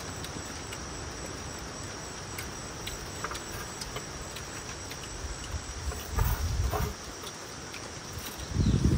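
Insects chirring steadily in a high, even buzz, with scattered small clicks. Two short low muffled rumbles break in, about six seconds in and again near the end.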